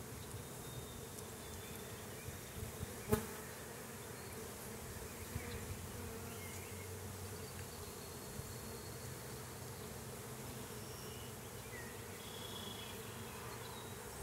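Steady buzzing hum of a honeybee colony on the open frames of a nuc box. A single sharp click about three seconds in.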